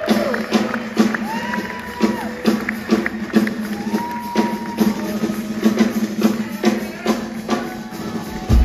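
Live drum solo on a drum kit: fast, busy hits on drums and cymbals over a steady low tone, with a heavier low hit near the end.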